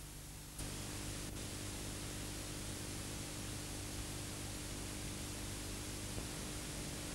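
Steady hiss and a low electrical hum from a blank stretch of analogue video tape, with no programme sound. The hiss jumps up a little about half a second in, with a faint click.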